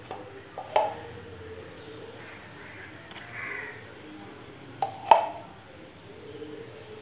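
A steel spoon knocking against a steel saucepan, two sharp clinks near the start and two louder ones about five seconds in, as ghee is tapped off the spoon into thick custard halwa.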